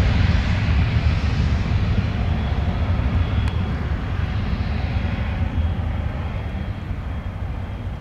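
Twin Pratt & Whitney Canada PW306 turbofans of a Cessna 680 Citation Sovereign at takeoff power: a deep, steady jet rumble with a faint high whine. It fades gradually as the jet rolls away down the runway.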